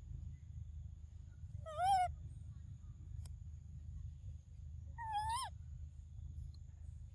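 Two tonal coo calls from a young macaque: a short rise-and-fall about two seconds in, then a longer call about five seconds in that rises at its end.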